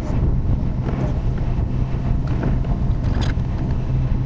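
Excavator's diesel engine running steadily with a low drone, with a few short higher-pitched noises from the machine at work about one, two and a half, and three seconds in.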